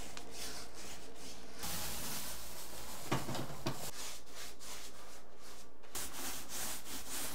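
Paintbrush and paint roller rubbing over a drywall wall in repeated strokes while wet paint is laid on.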